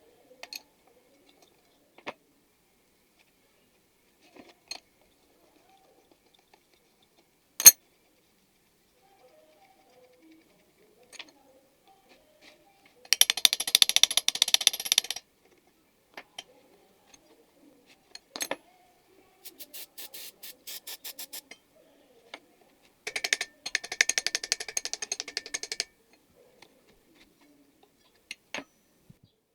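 Hand work on a small power tool: scattered clicks and taps, one sharp knock, and three bursts of rapid clicking a few seconds long.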